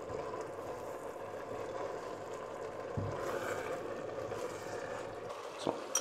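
Red cabbage simmering in a stainless-steel pot, a steady bubbling hiss as it comes to the boil, while a spoon is stirred through it. A dull knock about halfway through and a few light clicks near the end.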